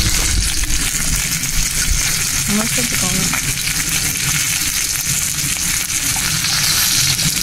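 Chicken pieces frying in hot oil: a steady sizzle with fine crackling.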